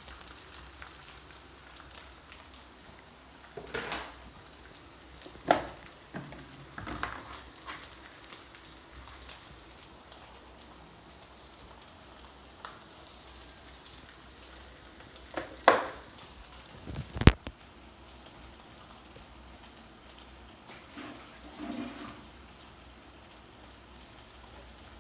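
Sliced fish balls, onion, garlic and tomato sautéing in oil in a steel wok, a quiet steady sizzle. A few sharp clicks and knocks cut through it, the loudest about two-thirds of the way in.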